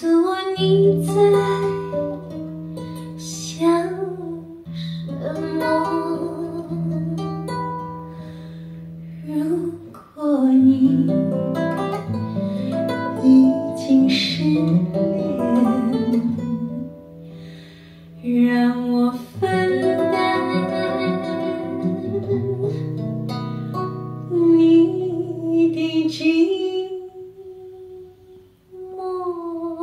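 Music: a Mandarin pop song played back through Qinsound bookshelf loudspeakers driven by a Perreaux SA35 preamp and 2370 power amplifier, heard in the listening room, with long held bass notes under the melody.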